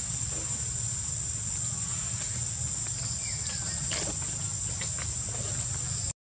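Steady high-pitched insect drone, with a low hum beneath and a few faint chirps around the middle; everything cuts out abruptly near the end.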